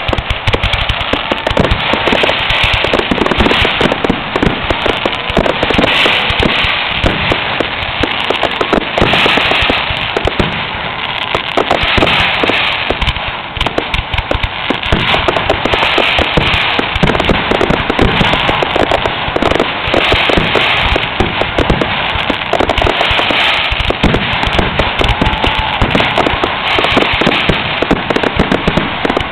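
Fireworks finale: a rapid, nearly continuous barrage of bangs and crackling shells.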